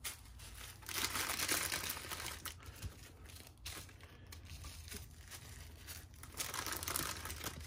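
Small plastic zip bags of diamond-painting drills being handled, crinkling and rustling in uneven bursts, loudest about a second in and again briefly near the end.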